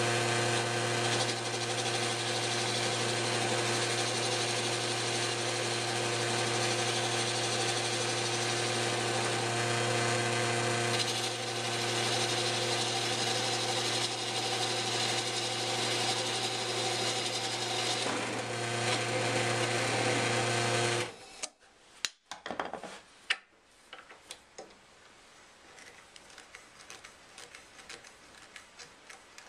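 Electric motor of a belt-driven wood lathe running with a steady hum while a hand-held turning tool cuts the spinning wood, adding a rough scraping hiss. The sound stops abruptly about two-thirds of the way through, leaving only faint clicks and knocks.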